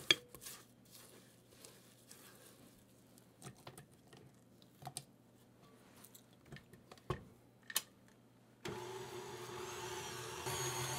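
A few faint clicks and taps of a spatula scraping the glass bowl and beater. Then, most of the way in, a KitchenAid tilt-head stand mixer switches on and runs steadily, its motor humming as it beats creamed butter and sugar.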